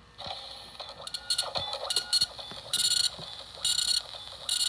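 1985 Sony Watchman pocket TV's small speaker playing the audio it receives, tinny and buzzy, with a loud pulse repeating a little faster than once a second.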